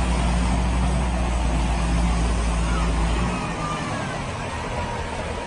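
A motor vehicle's engine running with a steady low drone over constant noise. The drone drops away about three seconds in.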